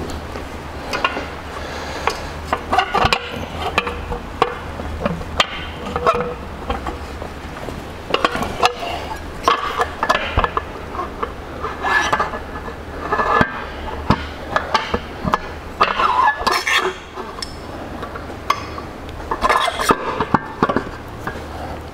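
Scattered metal clinks and knocks as the gear case of a Honda BF40 outboard is handled and fitted up against its midsection, with bolts being started into it. A low steady hum sits underneath.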